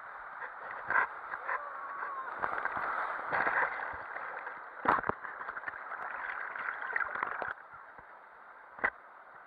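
Water rushing and sloshing around a rider going down a water slide, with sharp knocks about one, five and nine seconds in; the rush drops away abruptly about three-quarters of the way through.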